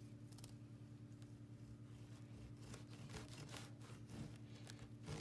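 Faint rasping of a serrated bread knife sawing through a loaf cake, a few strokes in the second half, over a steady low hum.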